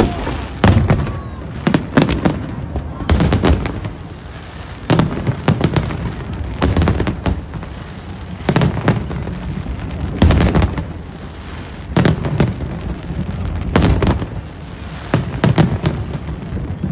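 Aerial fireworks display: shells bursting in sharp bangs every second or two, often in quick pairs or clusters, with a low rumble between them.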